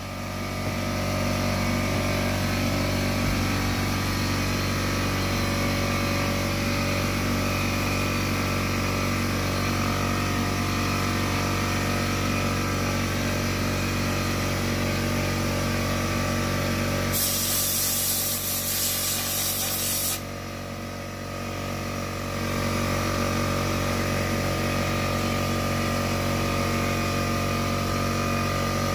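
Sandblasting cabinet in use: a steady hiss of the air-and-abrasive blast over a steady hum. About seventeen seconds in, a sharper, louder hiss lasts about three seconds, then the sound drops off for a couple of seconds before the steady blast resumes.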